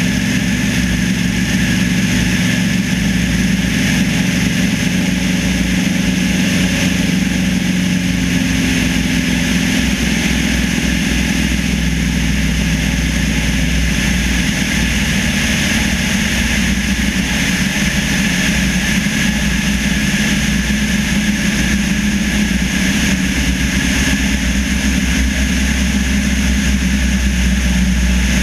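Single-engine light aircraft's piston engine and propeller droning steadily in flight, with airflow rushing past a wing-mounted microphone. The drone's pitch shifts slightly partway through.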